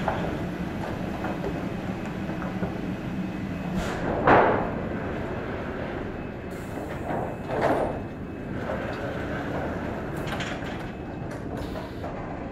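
Sawmill lumber stacking and unstacking line running: chain conveyors and handling machinery moving boards, a steady mechanical rumble with two louder brief surges about four and seven and a half seconds in.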